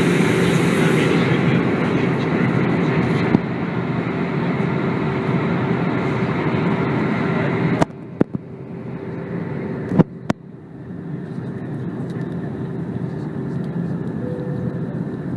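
Airbus A320 cabin noise in flight: a steady rush of airflow and engines with a low hum. About eight seconds in it drops abruptly to a quieter, duller level, with a few sharp clicks.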